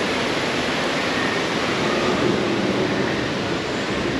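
Steady rushing of a waterfall.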